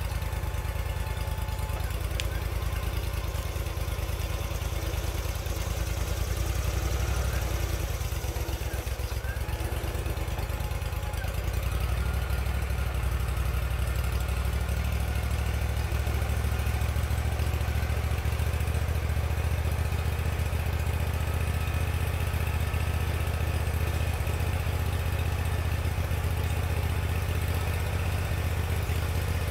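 Engine of a portable bandsaw sawmill running steadily, with a shift to a stronger, steadier drone about twelve seconds in.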